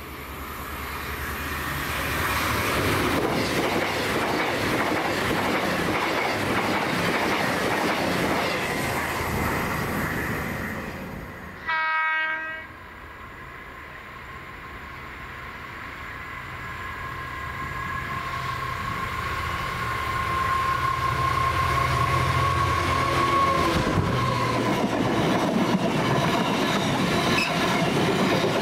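A train running on the main line, its rail and wheel noise swelling over the first ten seconds, then one short horn blast about 12 s in. Then a Class 66 diesel freight locomotive hauling container wagons approaches, its sound building with a steady whine, and the wagons clatter past loudly over the last few seconds.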